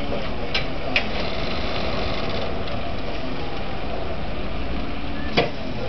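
Lift truck engine running steadily while the forks work a pallet, with three sharp knocks: two close together early on and a louder one near the end.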